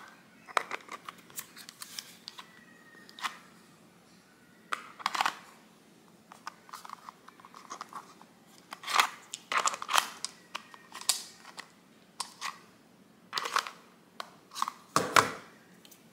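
Small plastic clicks, taps and scrapes as a plug-in air freshener warmer and its glass refill bottles are handled and fitted together, with a louder knock near the end.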